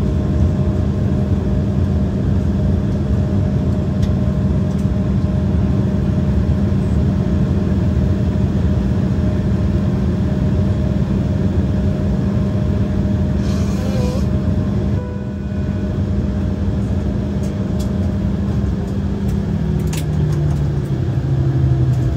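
Cabin noise of an Embraer 175 taxiing after landing: the GE CF34 turbofans and cabin air give a steady hum with a low tone. The tone steps down in pitch about 20 seconds in as the engines wind down.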